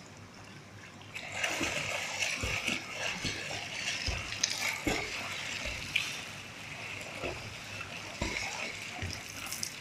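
Splashing of a learner swimmer's arm strokes and kicks in a swimming pool, starting about a second in, with irregular slaps as arms and feet hit the water.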